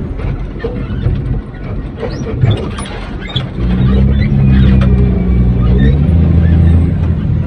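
Heavy vehicle engine running, growing much louder about halfway through, with scattered metallic clanks and knocks throughout.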